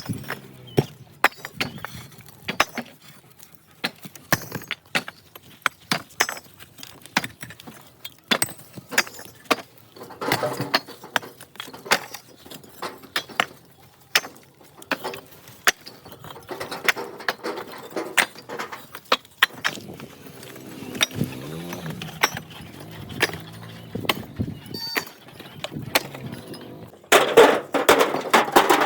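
Hard bricks knocking and clinking against each other as they are handled, a dense run of sharp, irregular clinks that grows louder and busier near the end.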